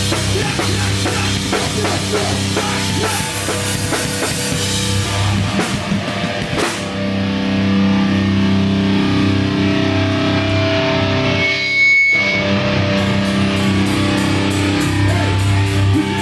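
Hardcore band playing live: distorted electric guitars and bass holding heavy chords over a drum kit. About twelve seconds in the sound drops out for a moment, then an even, fast beat of about four strokes a second comes in.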